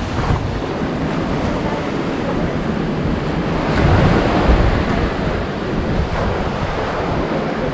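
Surf washing on the shore with wind rushing over the microphone, swelling louder about four seconds in.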